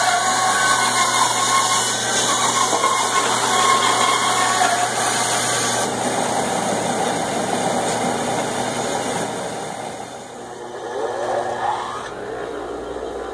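Band saw running and cutting lengthwise through a thick wooden board, a steady dense mechanical noise. Near the end the level drops and a motor's rising whine follows.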